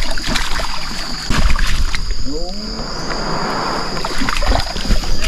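Irregular knocks and bumps against a wooden canoe's hull as it is handled on the river, with a short falling voice-like call about two and a half seconds in.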